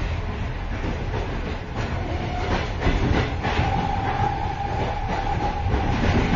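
Inside a moving train's vestibule between carriages: continuous rumble and rattling clatter, with wheels knocking over rail joints. A steady mid-pitched tone rises out of the noise for about three seconds in the middle.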